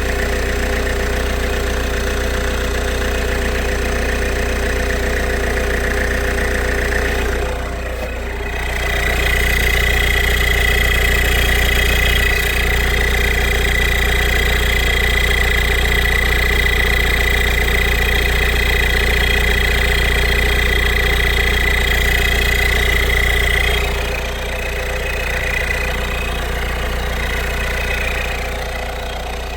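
Peugeot 1.6 HDi four-cylinder diesel engine idling steadily as it warms up after a thermostat housing replacement and coolant bleed. A steady high whine joins about eight seconds in and drops away around twenty-four seconds.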